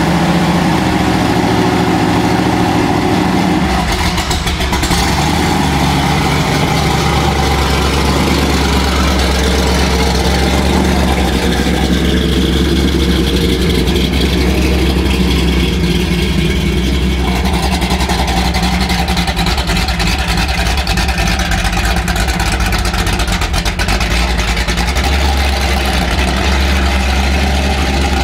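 A 1954 Ford F100 restomod's stroked 557-cubic-inch Ford big-block V8 running through Hooker headers and a custom 3-inch exhaust with a deep, steady exhaust note.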